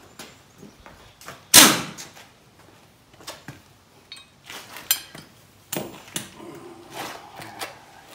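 Metal parts being handled under a zero-turn mower deck while a new mower blade and its bolts are fitted: scattered knocks and clatters, with one loud bang about one and a half seconds in.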